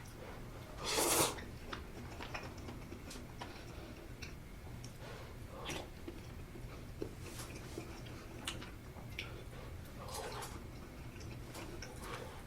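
Close-miked eating of spicy sausage stew with ramen noodles: soft wet chewing and mouth clicks, with one loud slurp about a second in.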